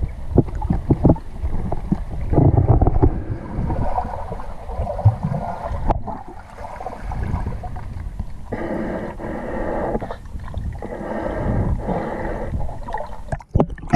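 Muffled underwater noise as a snorkeler swims with a pole spear in murky lake water: water rushing and knocking against the camera, with gurgling. A steadier hum sits under it for a few seconds in the second half.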